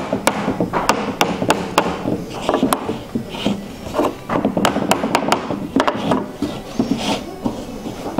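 Irregular sharp taps and knocks on a wooden stretcher frame, about two a second, mixed with the rustle of linen canvas being pulled and folded over the frame's edge by hand.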